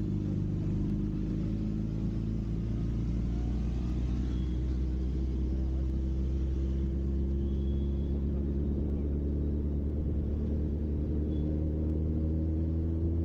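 Motorcycle engine running steadily at cruising speed, heard from a camera mounted on the bike, with a constant rush of wind and road noise.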